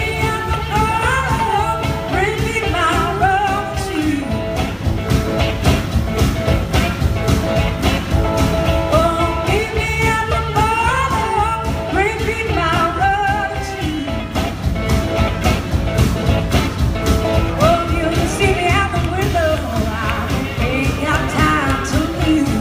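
Live acoustic band performance: a woman sings lead over acoustic guitar and upright bass, with a steady beat.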